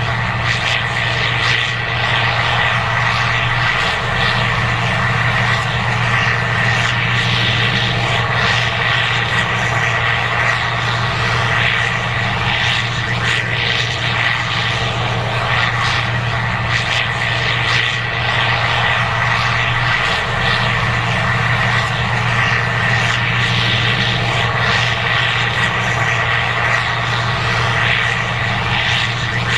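Case IH 2188 Axial-Flow combine running steadily while harvesting corn: a constant, even engine and machinery drone with a steady high whine over it.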